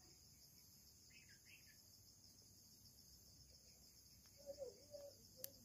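Near silence with the steady, high-pitched chirring of crickets, and a single faint click near the end.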